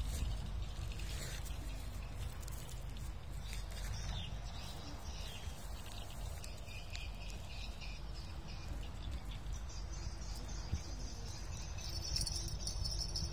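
Wind rumbling on the microphone, with faint high chirps scattered through and a steadier high buzz starting about twelve seconds in.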